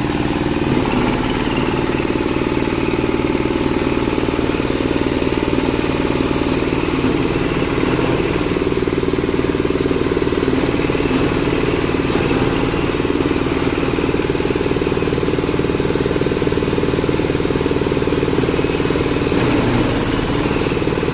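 Cocopeat grinding machine (Jumbo Type-SM60 coconut-husk grinder) running steadily at an even speed.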